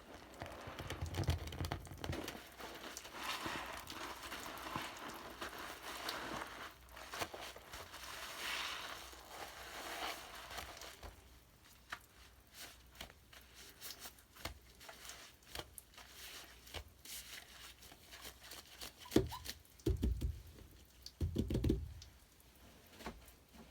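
Bath products (foam, crackles or soap shavings) being crushed and squeezed, crackling and crinkling densely for about the first ten seconds, then thinning to scattered pops and clicks. Near the end come a few dull low thumps.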